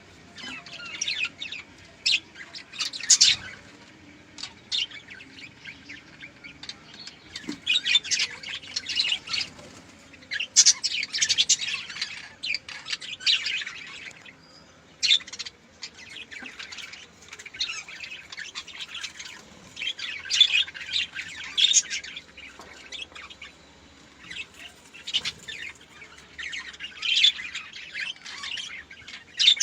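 Budgerigars chirping and chattering in quick high bursts of a second or two, with short pauses between.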